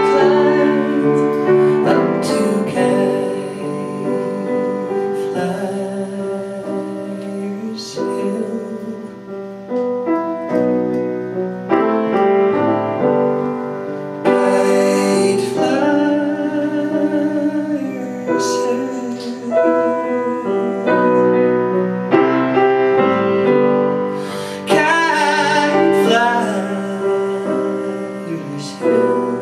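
A man singing a slow ballad into a microphone, with piano accompaniment; several long held notes carry vibrato.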